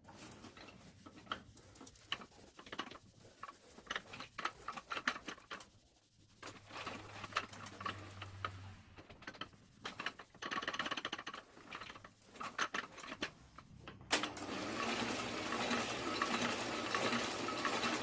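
Scattered clicks and knocks of handling at a small offset printing press. About fourteen seconds in, a steady mechanical clatter starts and keeps running: the press turning over for a test after a new blanket was fitted.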